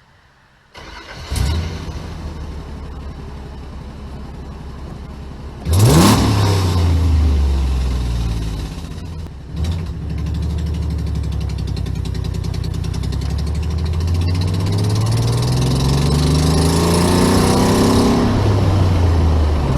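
Nissan 300ZX's V6 engine comes to life about a second in, then revs sharply upward about six seconds in as the car pulls away. It runs on under acceleration, its pitch climbing steadily and falling back near the end.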